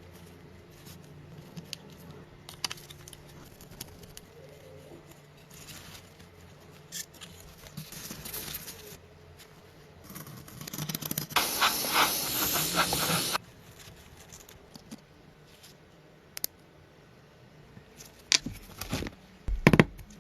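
Workshop work sounds: scattered light clicks and knocks, a loud hiss lasting about three seconds midway, then a few sharp knocks and a heavy thump near the end.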